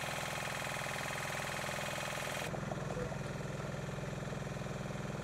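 A small engine running steadily, with an even hiss over it that cuts off about two and a half seconds in.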